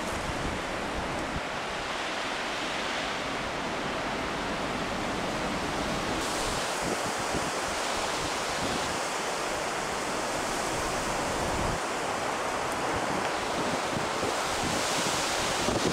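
Steady rush of strong wind and heavy surf from a storm-whipped sea, with the wind buffeting the microphone.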